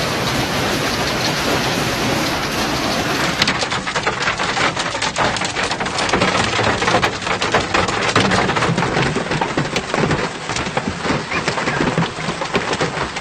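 Heavy rainstorm downpour, a dense steady rush of rain. About three and a half seconds in it switches to a crackling patter of many hard drops striking surfaces.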